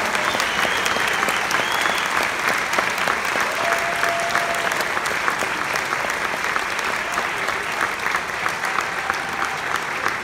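Audience applauding steadily with many hands clapping, as the choir finishes a song.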